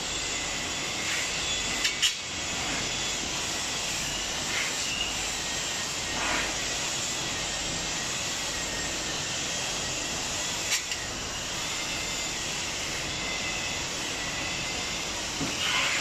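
Steady machine noise with a faint high whine, and a few sharp clicks about two seconds in and again near eleven seconds as metal tools knock against the whirlpool pump and its pipework.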